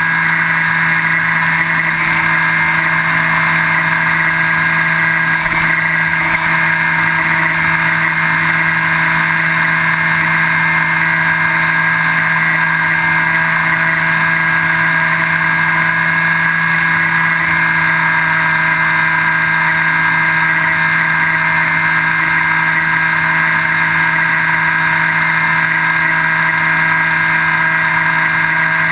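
Electric motor and pusher propeller of a Skywalker V3 foam FPV plane running steadily at a constant pitch in cruising flight, heard from the camera mounted on the airframe.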